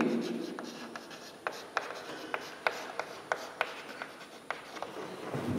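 Chalk writing on a chalkboard: a run of short taps and scrapes, about three a second, as letters are stroked onto the board.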